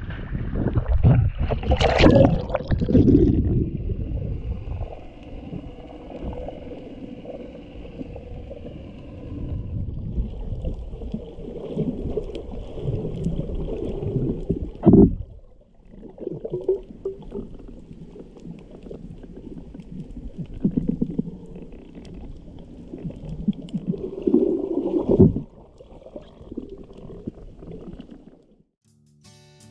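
Water splashing and sloshing against an action camera at the surface for the first few seconds, then muffled underwater sound: low gurgling and bubbling with a couple of sharp splashy bursts, one about halfway and one near the end.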